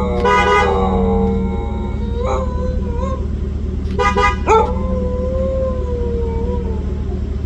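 Car horn honks briefly twice, and a shepsky (husky–German shepherd mix) answers each honk with a howl; the second howl rises and holds for about two seconds. Two short calls from the dog come in between.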